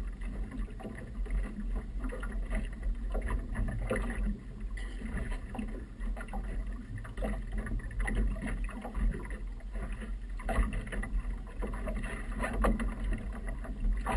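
Water slapping and splashing against the hull of a small motorboat, over a steady low wind rumble on the microphone.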